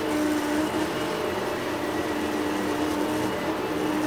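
MendelMax 3D printer's stepper motors whining as the print head moves across the print, a steady tone that breaks and shifts slightly in pitch from one move to the next.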